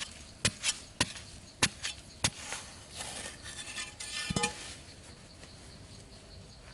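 A metal hand tool clinking sharply about five times, then scraping, with one heavy knock about four seconds in before it goes quieter.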